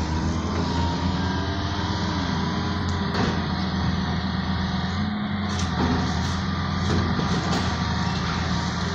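Tracked hydraulic excavator's diesel engine running steadily under load while it works demolition rubble, with a few sharp knocks scattered through the second half.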